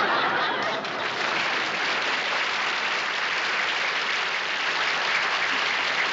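Studio audience laughing at a punchline, turning into steady, sustained applause about a second in.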